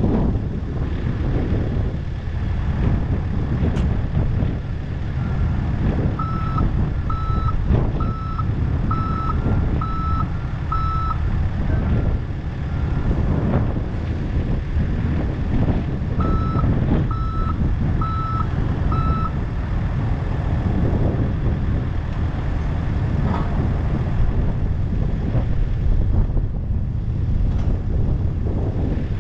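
Heavy diesel engine running steadily, with a backup alarm beeping about once a second: six beeps about a fifth of the way in, then four more after a pause of a few seconds.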